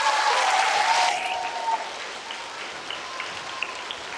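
Audience applauding, loud for about the first second, then thinning to lighter clapping.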